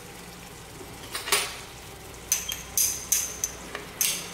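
A small glass bowl knocked against the rim of a large aluminium cooking pot, clinking with a short high ring about six times, most of them in the second half, to shake out the last of the chilli powder.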